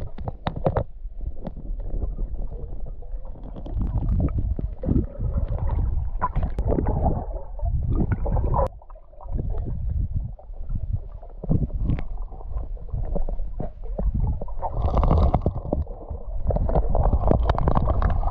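River water heard through a submerged camera's microphone: a muffled low rumbling and gurgling, broken by many short knocks. There is a brief brighter rush about three-quarters of the way through, and another near the end.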